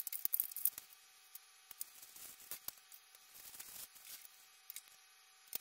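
Hands rummaging through a wooden sewing box, with light rustling and irregular small clicks and knocks as sewing items and paper are picked out and set down.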